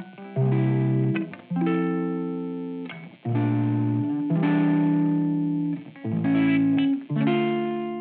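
Background music: a series of held chords, a new one about every second, each fading before the next.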